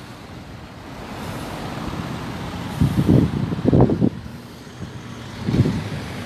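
Road traffic passing close on a roundabout: a minibus, a van and a car driving by, their noise building over the first few seconds, loudest as the van passes about three to four seconds in, with another short surge near the end as the car goes by.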